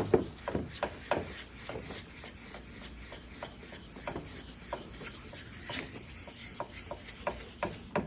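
Wet 400-grit sandpaper scrubbing by hand in circles on a plastic headlight lens, with short, even rubbing strokes at about three a second. The sanding is cutting off the lens's old, chipped clear coat.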